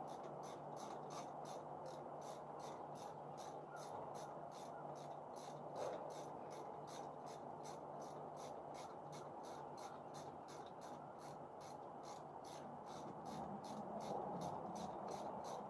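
Insect calling: a steady train of short, high-pitched pulses, about three a second, over a faint low hum.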